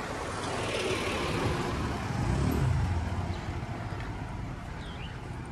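Street traffic: a passing motor vehicle's engine and tyre noise swells to a peak about halfway through, then fades away.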